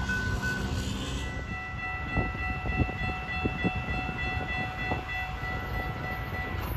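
A train horn sounding one long steady blast, starting about a second and a half in and held for about five seconds, with a few short knocks underneath.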